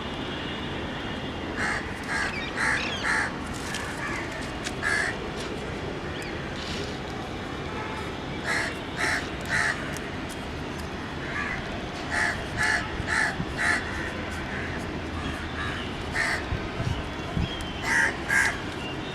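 Crows cawing outdoors in repeated runs of two to four short, harsh calls, over a steady background hiss.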